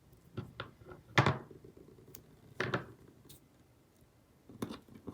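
Scattered knocks and taps of planner supplies being handled and set down on a desk, about five in all, the loudest about a second in.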